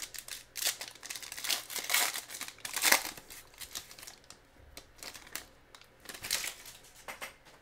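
Foil wrapper of a 2020 Certified football card pack being torn open and crinkled by hand: irregular crackling, loudest about three seconds in.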